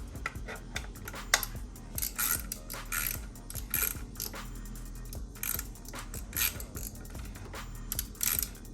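Hand ratchet with an 11 mm socket clicking in short repeated strokes, about one burst every second or less, as a floorboard mounting bolt is run in and tightened.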